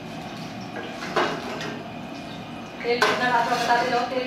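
Steel ladle clanking and scraping in a wok on a gas stove, with one sharp clank about a second in. A voice speaks over it near the end.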